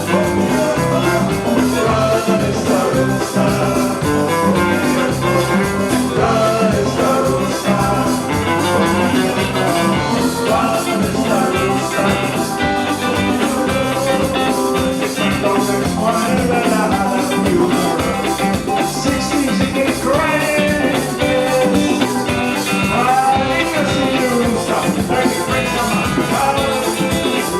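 Instrumental break in a calypso band song: the band plays on with a steady beat and melodic lead lines, with no lead vocal.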